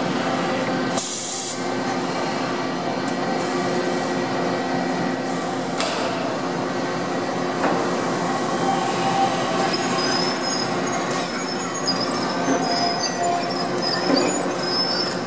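Mazak Quick Turn 10N CNC lathe cell with its gantry loader running: a steady machine hum with several held tones, a short hiss of compressed air about a second in, and a single click near the middle. Faint high chirping tones come in over the last few seconds.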